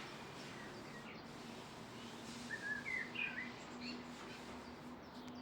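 A bird gives a few short chirps about halfway through, over a steady outdoor hiss.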